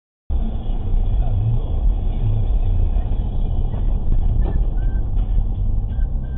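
Motor vehicle engine and road noise, a steady low rumble that cuts in abruptly about a third of a second in, with a few faint short high tones in the second half.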